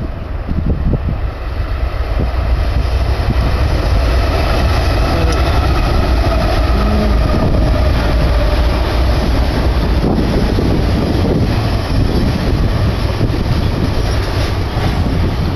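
Diesel locomotives of a BNSF intermodal freight train running, with heavy wind rumble on the microphone. The level rises a little over the first couple of seconds and then holds steady.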